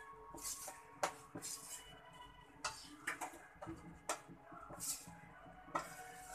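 Steel spoon clinking and scraping against a steel bowl of sifted gram flour, and the flour being tipped and pushed off into a metal kadhai: scattered sharp clinks and knocks with short soft swishes of sliding flour.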